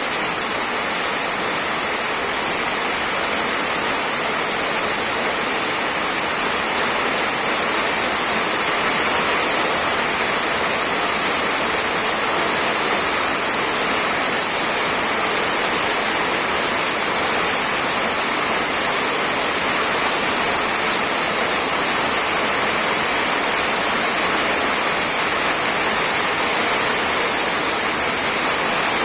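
Heavy rain falling steadily, a dense, even hiss with no single drops standing out.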